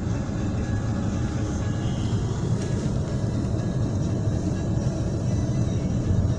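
Heavy hail pelting a car's roof and windscreen, heard from inside the car as a dense, steady rumble with no let-up.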